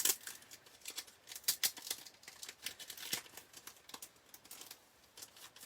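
Light clicking and crinkling of small craft embellishments and their packaging being handled, busiest in the first two seconds and sparser after.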